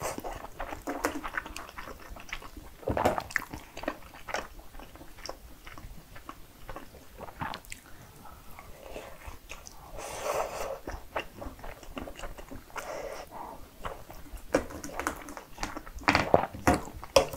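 Close-miked chewing and wet mouth sounds of a person eating cheesy spicy cream fried rice. Near the end a wooden spoon clicks and scrapes in a steel pan.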